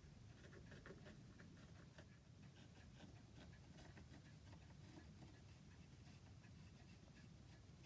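Near silence: faint room tone with scattered, irregular light clicks and scratches.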